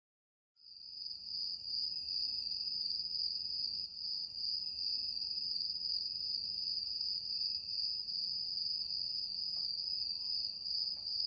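Steady high-pitched insect chirring, starting about half a second in, with a faint low hiss underneath.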